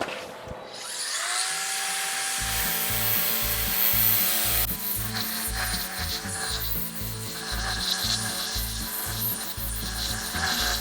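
Electric grinder spinning up about a second in, then grinding down a fresh weld on a steel patch panel with a steady whine and gritty rasp.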